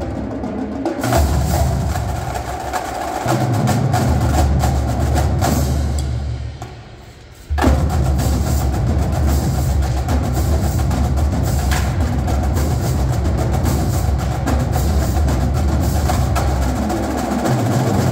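Marching drumline of snare drums, tenor drums, bass drums and crash cymbals playing a dense, loud drum cadence. About six seconds in it fades almost away, then comes back with a sudden full hit at about seven and a half seconds and drives on at full volume.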